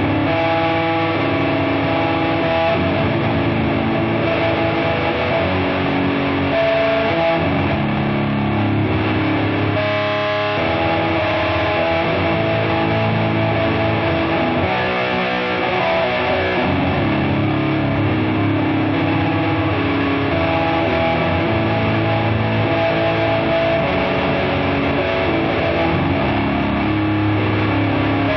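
Doom metal: a slow riff on heavily distorted electric guitar, with sustained notes held for a second or two at a time at a steady, loud level.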